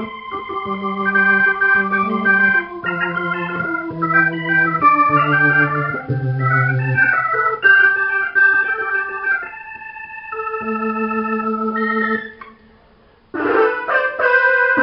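Roland VR-09 combo keyboard playing an organ sound: held, changing chords over a bass line that steps downward. It stops about twelve seconds in, and after a short gap a new, brighter patch starts near the end.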